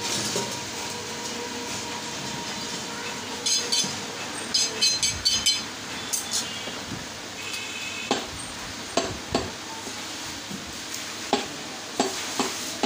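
Steel knife blades scraped and clinked against each other in a quick run of metallic, ringing strokes, as a butcher's knife is honed on another blade. After that come several separate sharp knocks of a knife coming down on a wooden log chopping block.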